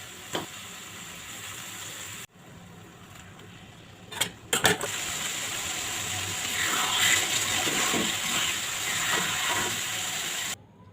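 Steady hiss of food cooking in a pan, broken by abrupt edit cuts, with a few sharp utensil clinks about four seconds in after which the hiss gets louder.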